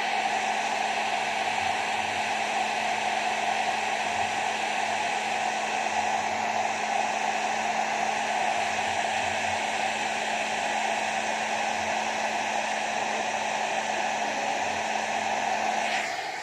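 Handheld hair dryer running steadily: a rush of air over a steady motor hum, winding down and stopping near the end.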